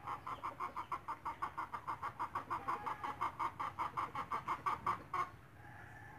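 An animal call: one short note repeated evenly and fast, about six times a second, growing slightly louder, then stopping about five seconds in. A fainter steady call follows.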